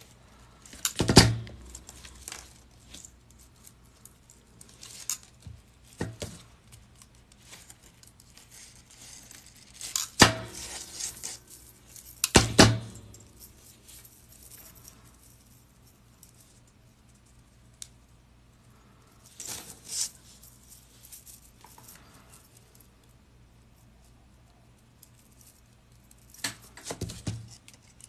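Metal jump rings and a chainmaille piece jingling and clinking as they are handled and worked with pliers, in scattered rattles at irregular intervals, the loudest two close together around the middle, with quieter handling noise between.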